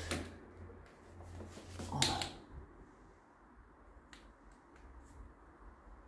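Quiet room tone with a low hum, broken by a few faint clicks and one slightly louder short sound about two seconds in.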